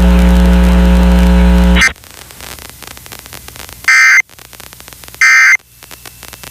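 A loud, steady buzzing tone that cuts off about two seconds in. After a pause of low hiss comes the Emergency Alert System end-of-message signal: three short bursts of screeching data tones, about a second and a third apart, the last one near the end.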